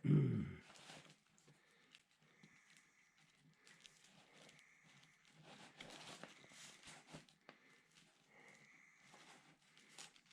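A short low thump at the start, then faint scattered clicks and rustles of hands handling wires and small parts while fitting shrink tubing.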